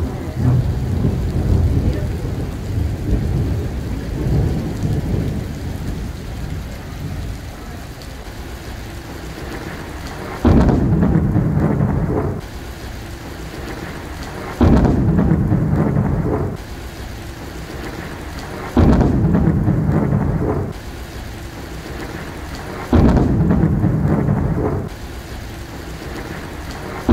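Thunder from a nearby lightning strike rumbling and dying away over steady rain on wet pavement. From about ten seconds in, a louder burst of low rumble and rain noise comes every four seconds or so, each about two seconds long, starting and stopping abruptly.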